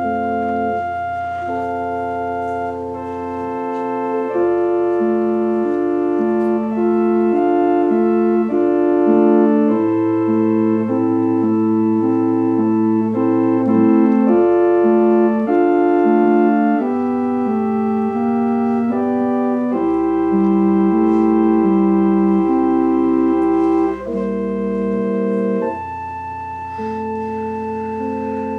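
Organ music: held chords over a moving middle voice, with long sustained bass notes changing every few seconds.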